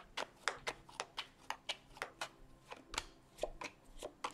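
Tarot cards being shuffled by hand: a quick, even run of soft card flicks, about five a second. Near the end the flicks thin out as cards are dealt onto the wooden table.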